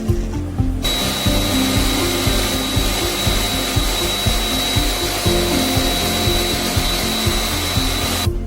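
A motorized cleaning machine running with a steady hiss and a high whine; it starts about a second in and cuts off suddenly near the end. Background music with a beat plays throughout.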